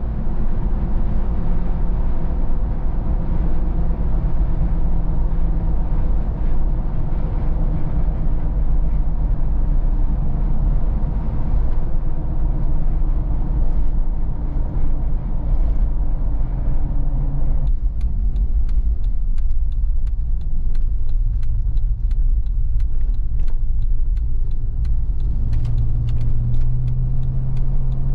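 Inside the cabin of a 2018 Jeep Wrangler Sahara at highway speed: steady road and wind noise over a low engine drone. About two-thirds of the way through, the hiss drops suddenly and a run of light ticks follows. Near the end a steadier low engine hum comes in.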